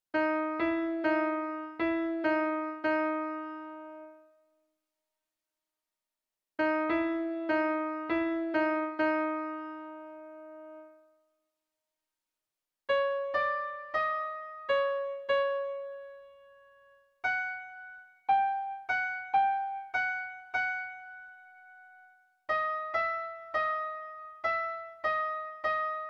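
Background piano music: five short phrases of a few struck notes each, separated by brief gaps of silence.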